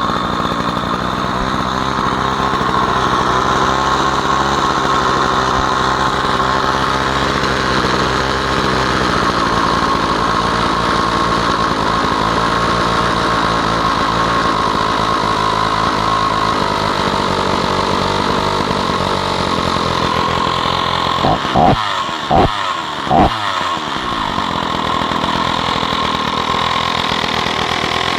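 Stihl 045 AV 80 cc two-stroke chainsaw engine running steadily on its first run after a new piston and rings, with three quick throttle blips about three-quarters of the way through that drop back to the steady run.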